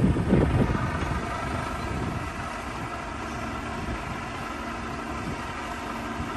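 Heavy truck engine running steadily, with gusts of wind buffeting the microphone during the first second.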